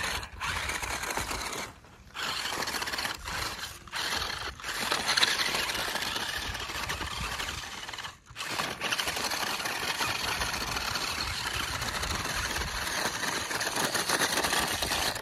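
Small electric motor and gears of a 4WD toy RC rock crawler whirring as it climbs a rocky dirt slope, cutting out briefly about three times as the throttle is let off and reapplied. The crawler is struggling on the climb.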